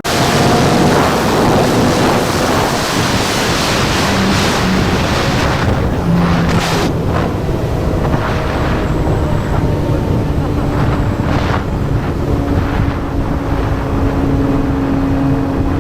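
Yamaha MT-09 three-cylinder engine running through a Yoshimura R11 exhaust while riding. Its note shifts up and down with the throttle, under a heavy rush of wind on the helmet or action-camera microphone.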